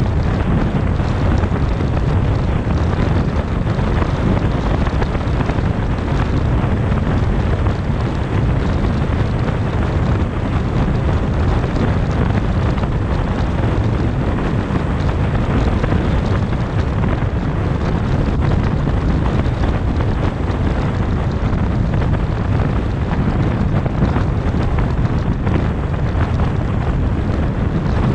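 Steady rumble of a car driving at highway speed: tyre and road noise with wind buffeting the microphone, heaviest in the low end.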